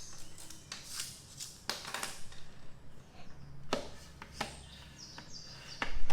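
Handling noise: a scatter of light clicks and knocks as objects are moved and handled, with a louder knock near the end.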